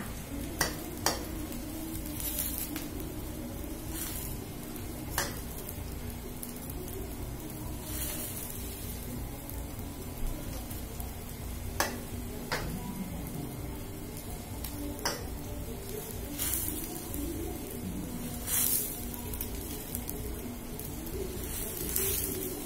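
Chicken pieces simmering in water in a steel wok, a steady low bubbling hiss. Every second or few seconds a metal ladle scrapes and knocks against the wok and a bowl as the foam is skimmed off.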